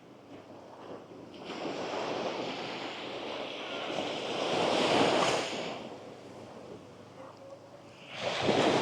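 Gentle sea waves breaking and washing up the sand: a long wash swells about a second and a half in, peaks and fades away, and a second wave surges in near the end.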